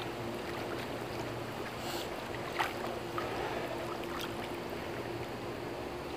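Swimming-pool water sloshing and lapping as a child paddles in an inflatable swim ring, with a few small splashes, the loudest about two and a half seconds in, over a steady low hum.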